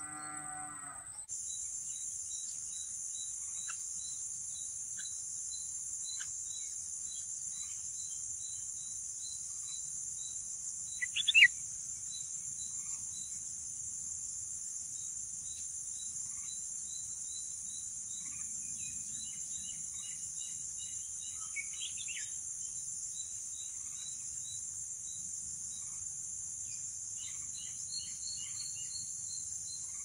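Steady high-pitched insect drone with a fast, faint ticking beneath it. Short, sharp bird chirps cut through about eleven seconds in, the loudest sound, with fainter chirps later. A brief low call with a cow-like pitch is heard at the very start.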